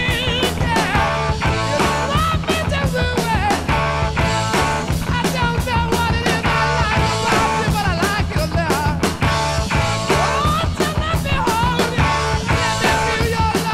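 Rock music with a steady drum beat, bass and a bending lead melody line.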